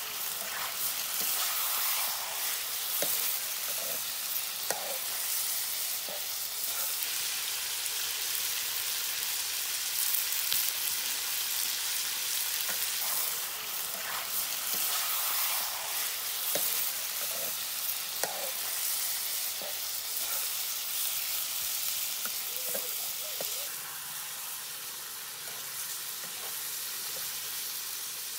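Chicken pieces sizzling as they fry in a black two-handled karahi, with short clicks and scrapes of a metal spatula stirring them. The sizzle eases a little near the end.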